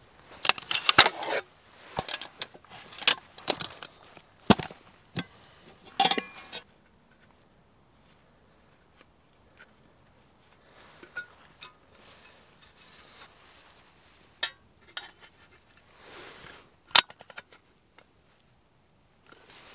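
Metal clinks and knocks of a camping spirit stove being assembled: the steel windscreen with its pot supports and the brass burner handled and set in place. The clatter is densest over the first six seconds or so, then thins to a few scattered clicks, with one sharp clink near the end.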